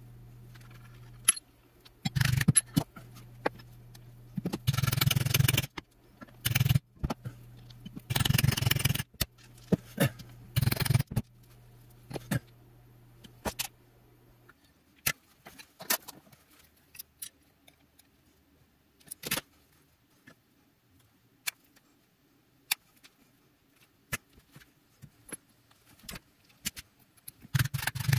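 Metal leatherworking tools and a steel bench block being handled on a wooden workbench: scraping and rattling with sharp clicks as they are moved and set down. Near the end come a few quick knocks of a nylon mallet striking a rivet setter to set a rivet in leather.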